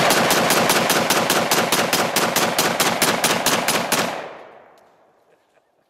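Ruger Mini-14 rifle (.223/5.56) fired rapidly in semi-automatic, about twenty shots at roughly five a second. The shooting stops about four seconds in and the echo dies away over the next second.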